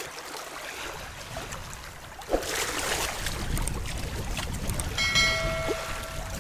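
Seawater sloshing and lapping at the shore, louder after a knock about two seconds in, with a short steady tone near the end.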